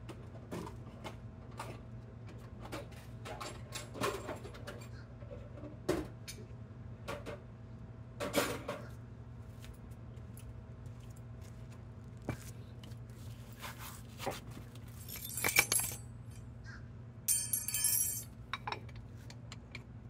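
Scattered light metallic clinks and taps of tools and brake parts being handled during a front brake pad job, over a steady low hum. Near the end come two short, louder noisy bursts.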